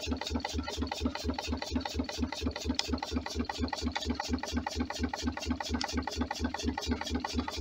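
Homemade Stirling engine running at a steady speed, a regular beat of about six strokes a second. Its hot-side silicone seal is leaking a little.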